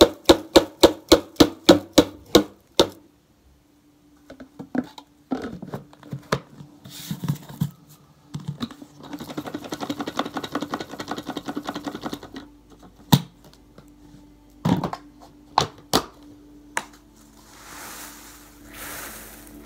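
Tissue paper being crunched and crumpled by hand: a run of rhythmic crunches, about three a second, for the first three seconds, then a stretch of crinkling and rustling with scattered sharp crunches as the paper pile is stirred.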